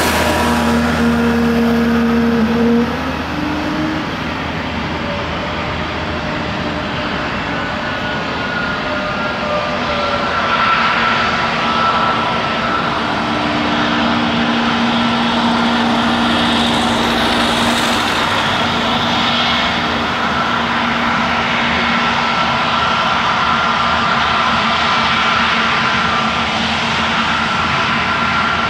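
Airbus A321neo's Pratt & Whitney PW1100G geared turbofan engines running at low taxi thrust as the airliner taxis past: a steady jet noise with a steady whine laid over it.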